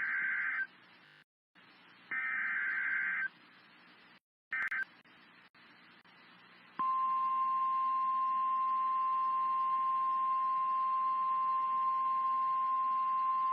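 NOAA Weather Radio emergency alert broadcast: three short bursts of warbling data tones (the SAME digital header), then about 7 s in a single steady alarm tone near 1 kHz starts and holds. This is the weather radio warning alarm that announces a new warning.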